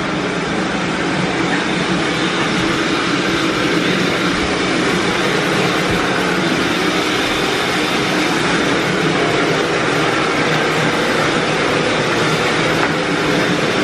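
Shower running close by in a small bathroom: a steady, loud hiss of water spray that does not change.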